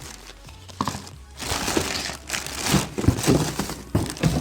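Packaging crinkling as it is rummaged through and handled, with several light knocks of items being moved; it gets louder and busier about a second and a half in.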